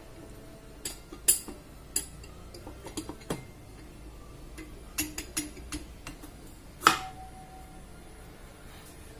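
Scattered metal clinks and taps as an alloy 60 mm cylinder block is worked down over the cylinder studs and piston onto a Modenas Kriss 110 crankcase. A sharper clink about seven seconds in rings briefly.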